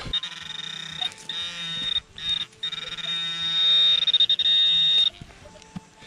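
Handheld metal-detecting pinpointer giving a steady, high-pitched buzzing alarm tone as its probe is held in the dug hole, signalling metal close by. The tone breaks off briefly about a second in and again at about two seconds, then stops about five seconds in.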